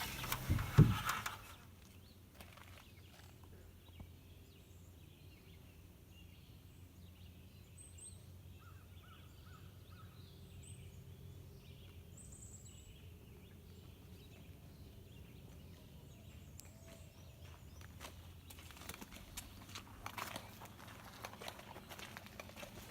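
Mostly faint background with a few brief high bird chirps and a short trill a third of the way in. A short burst of knocks at the very start, and light clicks and rustling near the end.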